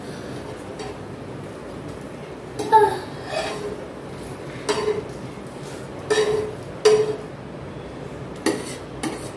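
Metal spatula clinking and scraping against a dosa tawa as a crisp dosa is rolled and lifted off: about seven short, sharp metallic clinks, starting around three seconds in.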